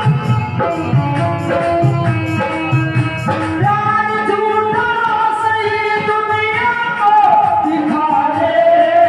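Live devotional bhajan: instrumental accompaniment with a steady beat, and a woman's singing voice entering a little over a third of the way in.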